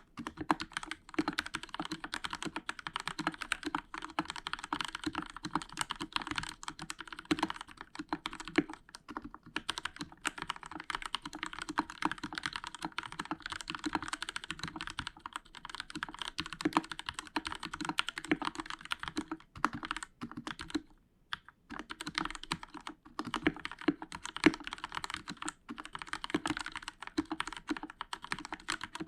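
Fast continuous typing on a Royal Kludge RK61 mechanical keyboard with linear Outemu Red switches, a dense patter of key clacks, with foam under the PCB and lubed stabilizers. The typing stops for a moment a little past the middle, then resumes.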